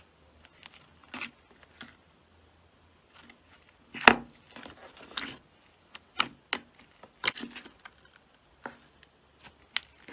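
Hands squeezing and pressing glossy slime in a plastic tub, giving irregular sticky clicks and pops, the loudest about four seconds in.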